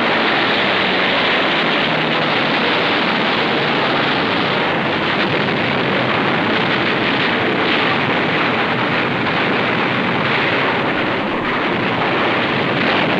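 Landing-craft engines running with rushing water and surf noise: a steady, dense rush with no separate shots or blasts.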